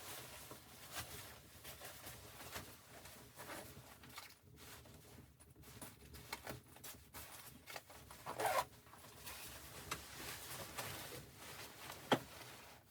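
Irregular rustling and handling noises, with a louder rustle about eight seconds in and a sharp click near the end.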